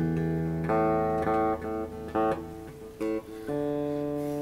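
Electric guitar played clean: a ringing chord dies away, several short chords follow about half a second apart, and near the end a chord is left to ring.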